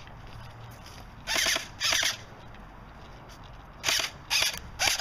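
An electric airsoft gun fires five short full-auto bursts, each a quick whirring rattle: two about a second in, then three in quick succession near the end.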